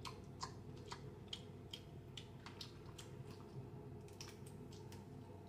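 Snow crab leg shells cracking and snapping as they are broken open by hand: faint, irregular small clicks, a few each second, over a low steady hum.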